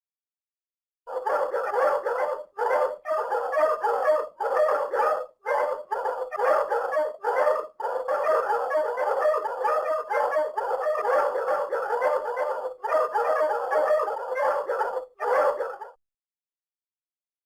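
Small dogs yapping and barking in quick, almost unbroken runs of high-pitched calls with brief pauses, starting about a second in and stopping a little before the end.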